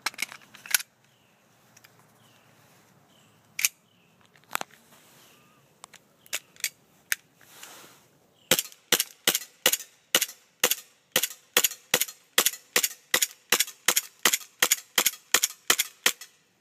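Airsoft Glock 18C blowback pistol firing: a handful of spaced single shots, then about halfway through a steady run of shots at roughly three a second, each a sharp crack, until the magazine runs dry.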